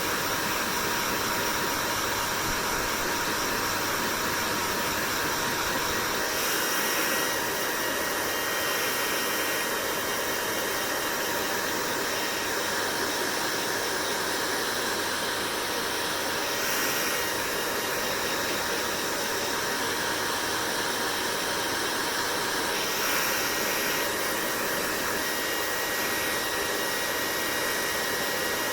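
Hair dryer running steadily: a constant rush of blowing air with a faint steady whine. Its tone shifts briefly about three times.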